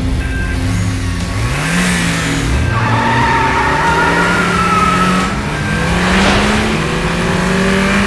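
Vehicle engine revving and accelerating, its pitch rising in several sweeps.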